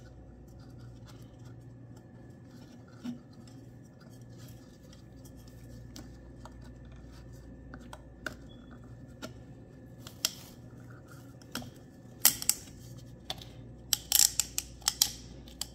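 Hands handling an oil filter housing cap and a new paper filter cartridge while fitting the new O-ring: scattered light clicks and scrapes, then a quick run of sharper clicks and rattles near the end as the cartridge is seated in the cap. A faint steady hum runs underneath.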